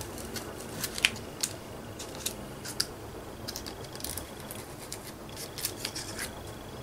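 Light, irregular clicks, ticks and small scratches of hand work at a craft table: paint being pressed and squished around a thin plastic punchinella stencil.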